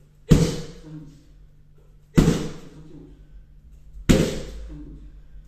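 Bare-legged right kicks smacking into a padded Blitz kick shield: three loud smacks about two seconds apart, each dying away over about half a second.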